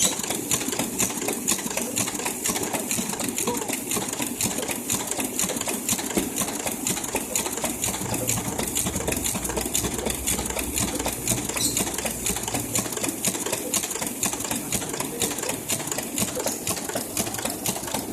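A machine running with a fast, even mechanical clatter that goes on without a break.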